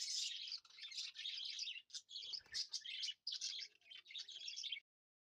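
Small birds chirping in a dense, continuous chatter, with a brief low thump about halfway through. The sound cuts off suddenly just before the end.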